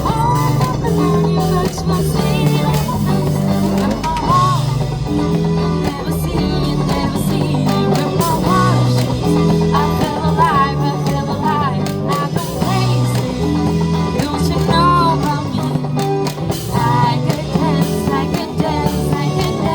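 Live band music from street buskers: a sung melody over guitar and a steady bass, in a rock style.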